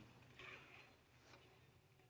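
Near silence: faint room tone with a low steady hum and a soft brief rustle about half a second in.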